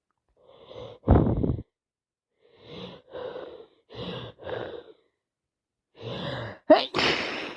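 A woman with a heavy head cold: a sharp breathy burst about a second in, then a run of short catching, sighing breaths as a sneeze builds, and a loud sneeze near the end.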